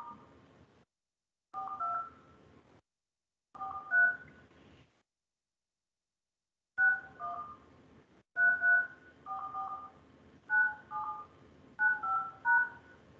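Telephone keypad touch-tones (DTMF): a dozen or more short two-tone beeps in bursts of two to four, with dead silence between the bursts.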